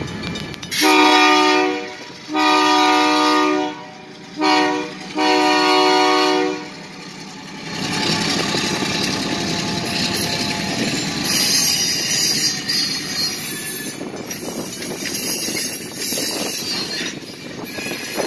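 Locomotive air horn sounding the grade-crossing signal: two long blasts, a short one and a long one. Then a freight train rolls slowly past, its cars clacking over the rails and the wheels squealing at times.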